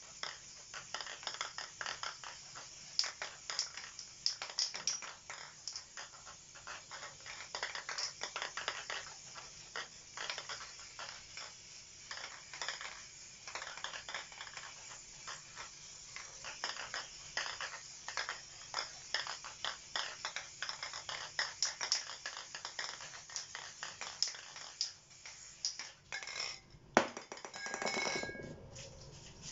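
Paper being rubbed and dabbed over the wet spray-painted board, a dense run of scratchy scuffs several times a second. Near the end there is a louder clatter with a short rising sound.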